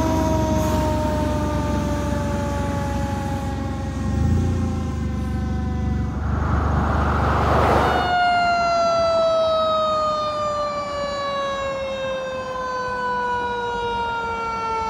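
Fire apparatus sirens sounding, each tone sliding slowly down in pitch, with a low rumble under the first half. About two thirds in, the sound cuts to another siren that starts higher and glides slowly downward.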